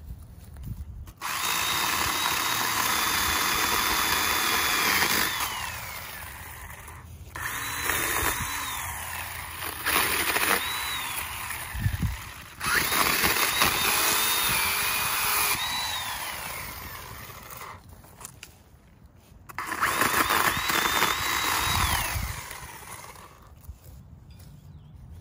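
Ryobi electric pole saw running in about five bursts as its chain cuts through branches, the motor whine falling away each time the trigger is released.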